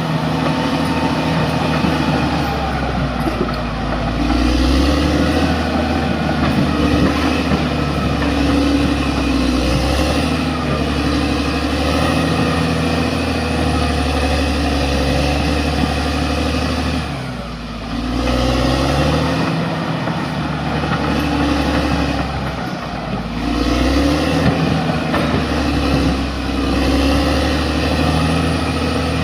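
Bulldozer's diesel engine running under load, its pitch shifting as it works. The revs drop sharply about two-thirds of the way through, then climb back up.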